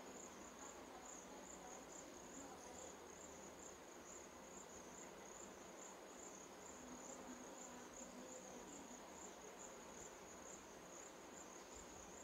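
Faint cricket chirping steadily in the background, a high, even pulsing trill a few pulses a second.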